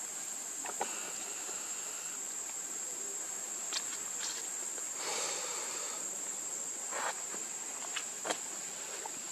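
Steady high-pitched insect drone, with a few brief taps and rustles scattered through and a short burst of rustling about five seconds in.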